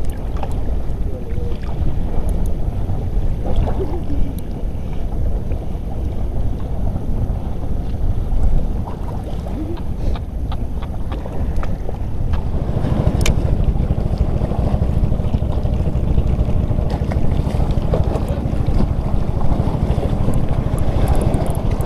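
Wind buffeting the microphone over choppy seawater, a dense low rumble with water sloshing. The rumble gets louder a little past halfway, and a single sharp click sounds soon after.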